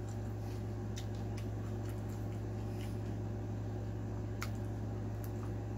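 A plastic fork on a plate of food, making a few faint scattered clicks and taps as it cuts and scoops rice, over a steady low hum.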